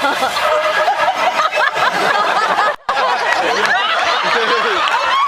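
Audience laughing, with many voices overlapping, broken by a short drop-out just under three seconds in.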